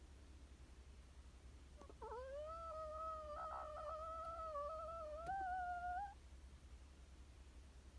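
Sleeping chihuahua's snore: one long, whistling breath that holds a steady pitch for about four seconds, rising slightly near its end.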